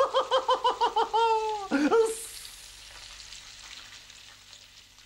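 A puppet character's high, rapid laugh, about ten quick beats ending on a long falling note. After it comes the hiss of air escaping from a punctured bicycle tyre, fading out over a few seconds.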